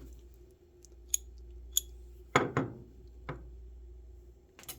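Small metallic clicks and knocks from handling a ratchet: two sharp ticks about a second apart, a louder double knock a little past the middle, then a few lighter knocks.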